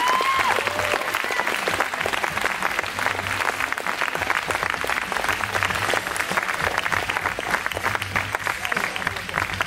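Audience applauding, a steady mass of many hands clapping, with some voices underneath.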